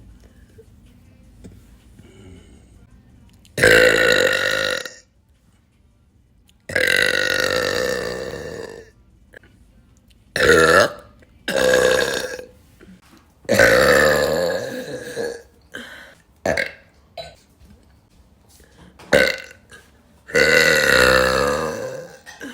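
A woman burping loudly, about seven times in a row. Some burps are long and drawn out, about two seconds each, and others are short. There are brief pauses between them.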